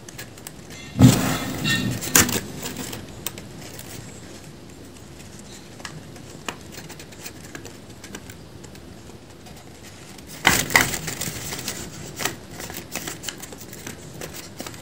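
A folded-paper dragon puppet being worked by hand. The paper crackles and the jaw clacks in two flurries, about a second in and again about ten seconds in, over a steady hiss.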